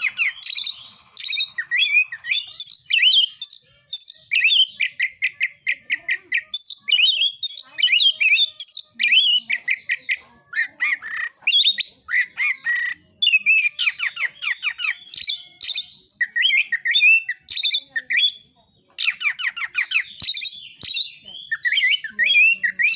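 Oriental magpie-robin (kacer) singing a fast, varied 'narung' song of whistles, trills and rapid runs of repeated notes, broken only by a few short pauses.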